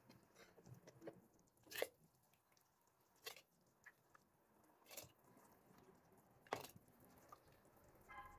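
Hot tomato-and-pepper sauce being ladled through a plastic funnel into a glass jar: faint, with a few short taps and wet plops about every second and a half.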